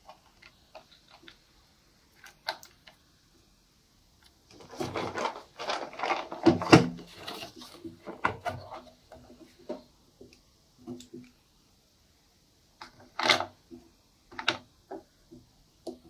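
Soft pastel sticks and a clear plastic compartment organizer box being handled: scattered light clicks, then a dense clattering rattle about five seconds in as the box is moved, and two sharp plastic snaps near the end as the box is opened.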